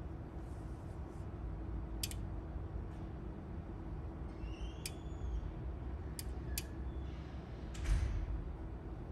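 LeCroy WaveSurfer 44MXs-B oscilloscope running with a steady fan hum as it finishes starting up, with several sharp clicks of its relays as the channels come on, and a louder low thump near the end.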